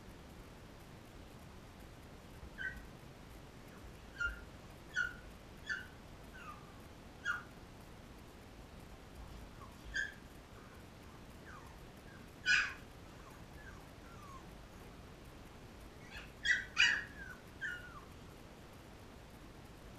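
13-day-old Labrador retriever puppies squeaking and whimpering: about a dozen short, high-pitched squeaks, some falling in pitch, with a louder one about halfway through and a quick cluster of three near the end.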